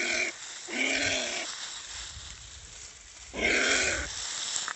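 Giant anteater pup crying out three times in short, hoarse calls, the last starting about three seconds in: the calls of a pup separated from its mother.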